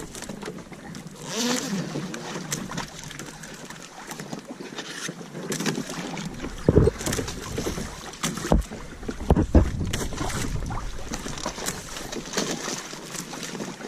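Wind on the microphone and water sloshing against a fishing kayak, with several dull knocks on the hull about halfway through.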